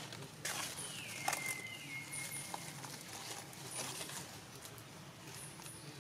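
Outdoor forest ambience: scattered short rustles and crackles, as of dry leaf litter being stirred, with a thin high call about a second in that slides down and then holds steady for about a second and a half.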